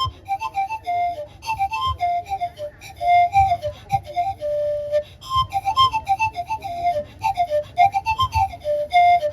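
Wot, the Isan circular bamboo panpipe, played solo: a quick, lilting melody of short, breathy notes that step up and down, with now and then a longer held note.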